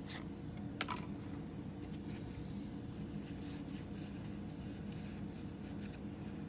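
Pokémon trading cards being handled and slid against each other, soft scratchy rubbing with one sharp click about a second in, over a steady low hum.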